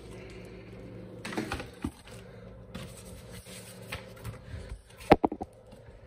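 Coffee-maker box and its plastic wrapping being handled: scraping and rustling, then a quick cluster of sharp knocks about five seconds in.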